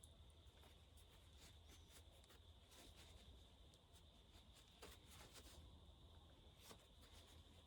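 Near silence: faint scattered rubbing and scraping of a rag wiping a chainsaw part clean, over a faint steady hum.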